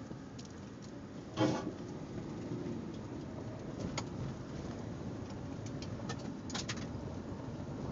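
Vehicle driving slowly up a rough dirt-and-gravel track, heard from inside the cab: a steady low rumble of engine and tyres, with scattered clicks and knocks from stones and rattles. About a second and a half in, a brief pitched squeak is the loudest sound.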